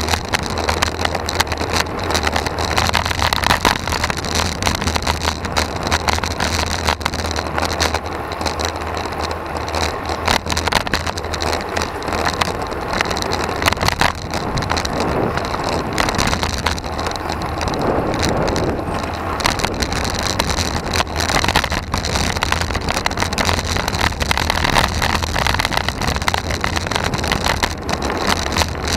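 Road bike riding in a group on tarmac: steady wind and road rush on the bike-mounted camera's microphone, with a constant low hum and frequent small knocks from bumps in the road.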